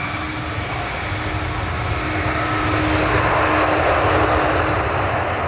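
Jet airliner on landing approach: steady engine noise with a few held tones, growing louder about three seconds in.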